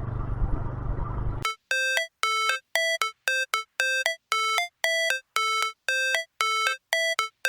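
Motorcycle riding noise for about a second and a half, cut off suddenly by a repeating electronic chime: short notes about two and a half a second, alternating between two pitches, leading into background music.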